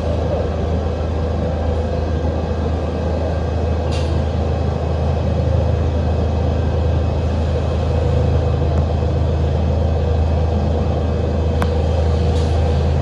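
Takamaz XT-8MY CNC lathe running a machining cycle: a steady low hum with a few brief hisses.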